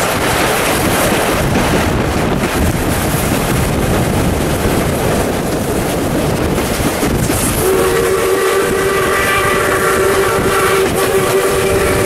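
Steam locomotive 621's whistle blowing one long, steady blast that starts a little past halfway in, over the loud rush of wind and running noise of the train heard from an open carriage window.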